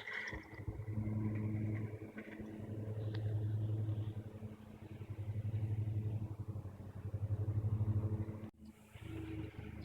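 A low engine hum that swells and eases several times, cut off briefly near the end.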